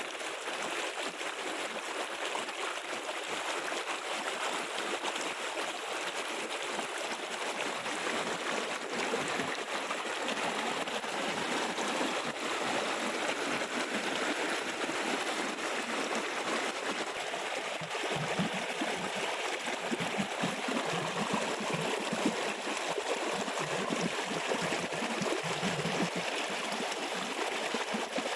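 Waterfall water rushing down in a steady, even stream, with some irregular low fluttering in the second half.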